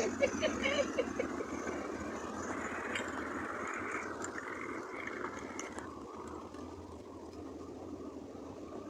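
A car driving away, its engine and road noise steadily fading over several seconds.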